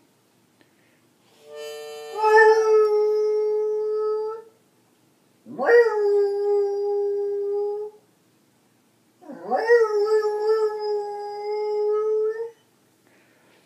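A beagle howling along with a harmonica: three long howls of about two to three seconds each, with short pauses between them. The second and third howls start with a quick upward slide in pitch.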